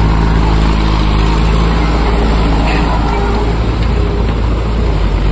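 Farm tractors' diesel engines running steadily under load, among them a Swaraj 744 FE 4x4 dragging a rotavator through the mud of a flooded paddy field. The engine note is clearest in the first couple of seconds and grows less even after that.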